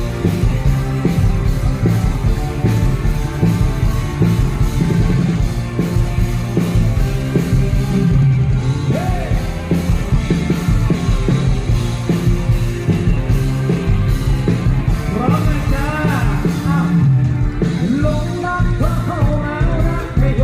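Loud live ramwong band music over a PA: a steady drum and bass beat, with a singer's voice coming in about fifteen seconds in.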